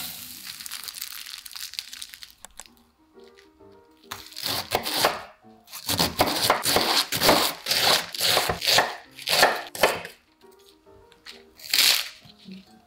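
Chef's knife cutting through raw cabbage on a wooden cutting board: a quick run of crisp, crunchy slicing strokes, with another cut near the end, over soft piano music.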